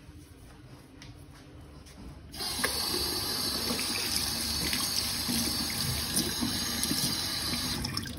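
Kitchen tap turned on about two seconds in, water running steadily over a tomato held under the stream and splashing into a stainless-steel sink, stopping near the end.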